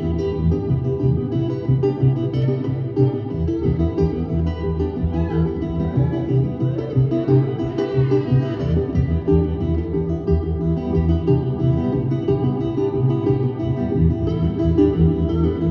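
Guitar-led live music playing an instrumental passage, with plucked strings over a steady low bass line.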